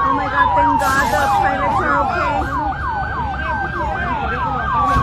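Two emergency vehicle sirens sounding together: one a fast yelp of about three sweeps a second, the other a slow wail that falls steadily in pitch.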